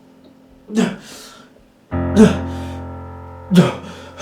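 Background music: a guitar chord is struck about two seconds in and rings, slowly fading. Three short bursts of a voice come over it.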